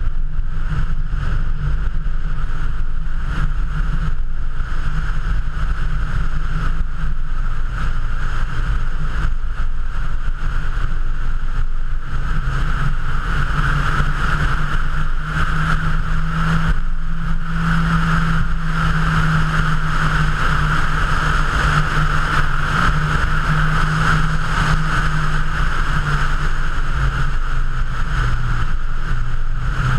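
Mazda MX-5's four-cylinder engine running steadily at cruising speed, mixed with wind rush and tyre noise as picked up by a camera mounted on the bonnet. The engine note grows stronger for a while midway through.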